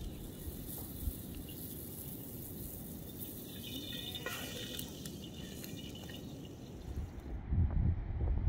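Flatbread dough hissing in a wide pan over a wood fire, with small crackles from the fire. About seven and a half seconds in the hiss cuts off and gusts of wind buffet the microphone.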